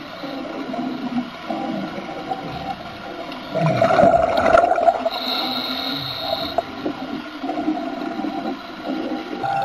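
Underwater recording: a steady mechanical hum with gurgling, growing louder between about three and a half and five seconds in.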